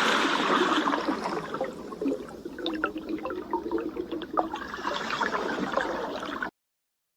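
Water sound effect: a loud rush that fades over a couple of seconds into gurgling and trickling with small bubbly clicks, then cuts off abruptly near the end.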